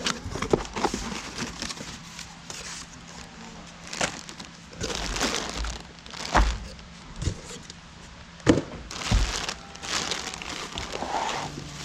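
Packaging crinkling and rustling as a kit's parts are handled and unwrapped, with a few sharp knocks and clicks of parts being set down.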